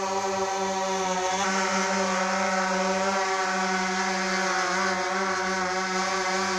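Quadcopter drone hovering, its propellers and motors giving a steady, loud buzz whose pitch wavers slightly.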